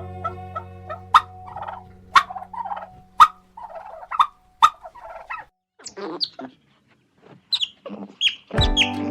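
A bird calling repeatedly: short calls about once a second, then several short high chirps that fall in pitch. Music fades out at the start and comes back near the end.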